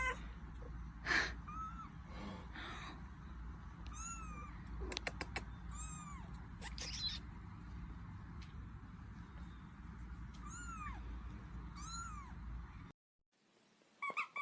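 A kitten mewing over and over, short high-pitched calls that rise and fall, with a few sharp clicks in the middle.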